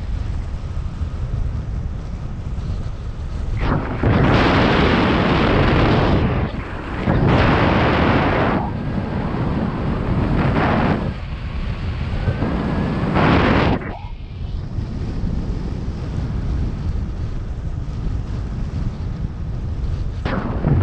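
Strong wind buffeting the microphone as a constant low rumble. Four loud gusts of rushing air come between about four and fourteen seconds in, and another starts near the end.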